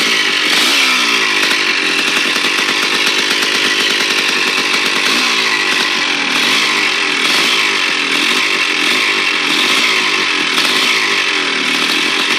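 Motorcycle engine running, its pitch rising and falling repeatedly as the throttle is worked, with noise from the clutch bell, the fault being shown.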